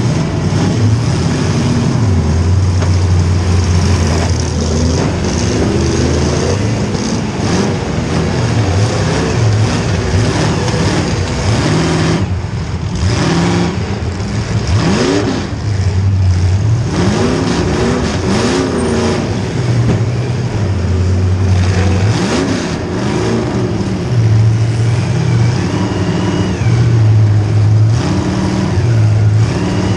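Demolition derby car's small-block Chevy V8 running loud and revving up and down again and again, over the noise of other engines.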